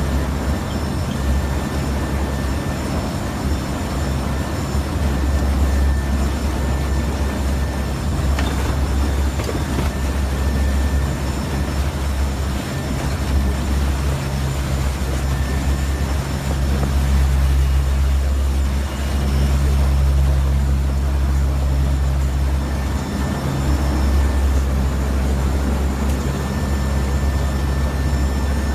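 Steady drone of a NOAA hurricane hunter aircraft's engines heard inside the cockpit, a deep hum with steady overtones and a rushing hiss above it, dipping briefly a few times.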